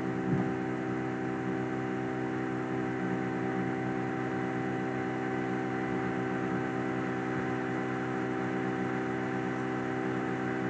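Steady electrical hum made of several fixed tones, unchanging throughout.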